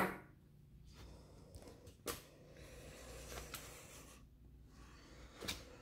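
Mostly quiet, with a few light clicks and taps from hand handling: a sharper click at the start, then fainter ticks about two, three and a half, and five and a half seconds in.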